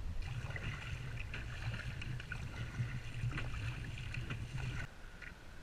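Water splashing and rushing against the hull of a sit-on-top kayak as it is paddled along, with the slosh of paddle strokes; it cuts off suddenly near the end.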